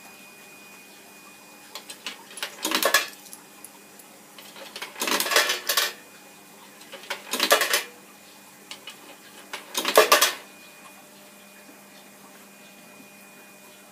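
Coins dropped into the coin acceptor of a coin-operated box on a clothes dryer, clinking and rattling as they fall inside, in four bursts a couple of seconds apart.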